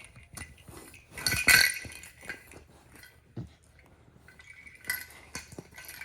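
Jingling cat toy shaken and knocked about by a Rottweiler puppy: irregular bursts of bell-like jingling with knocks, the loudest about a second and a half in and another near the end.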